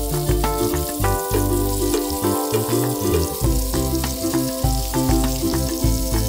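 Background music with a steady beat over the sizzle of stuffed chicken rolls frying in melted butter in a pan.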